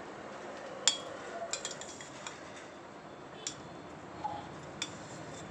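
Perforated steel ladle clinking and scraping against a stainless steel pressure cooker while cooked rice is fluffed and turned: a few sharp clinks, the loudest about a second in, with others around halfway and near the end.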